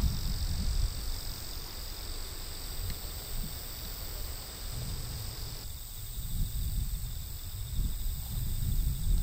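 Insects chirping steadily in the background, two high trills at once, one of which stops abruptly a little over halfway through. Under them runs an irregular low rumble.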